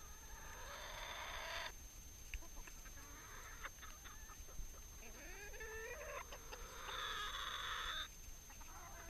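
Flock of domestic hens clucking close by, with a couple of longer, harsher calls mixed in.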